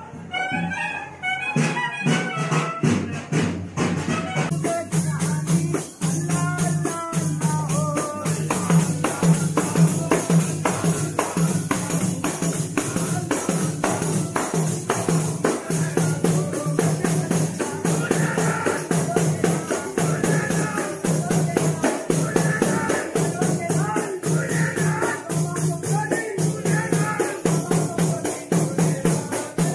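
Sufi frame drums (daf) beaten by a group of men in a fast, even rhythm, with the men singing a devotional chant over the drumming.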